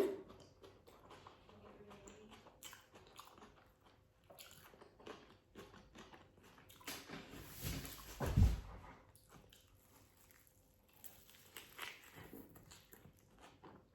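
Close-up chewing of a juicy barbecue bacon cheeseburger, with soft, wet, crunchy bites and mouth clicks, and a louder low thump about eight seconds in.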